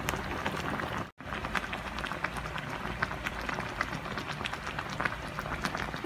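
Miso sinigang broth boiling in a metal pan, a steady bubbling with many small pops. The sound cuts out for an instant about a second in.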